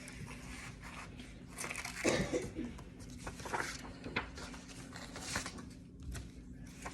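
Scissors cutting construction paper: irregular snips and paper rustling, a few louder cuts spaced a second or so apart.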